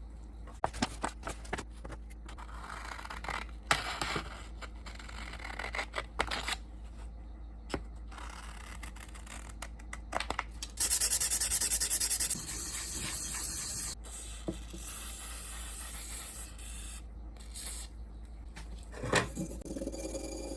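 Rusty steel axe head being rubbed and scraped clean during polishing: uneven rasping strokes with scattered light knocks, and a louder stretch of fast, dense scrubbing about eleven seconds in.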